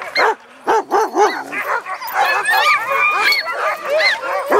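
Huskies yipping, whining and yelping in short calls that rise and fall in pitch. Several voices overlap at different pitches, with runs of quick, repeated yelps.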